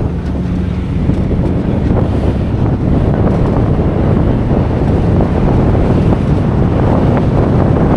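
Off-road vehicle driving along a dirt trail, its engine and tyre noise buried under heavy wind buffeting on the microphone.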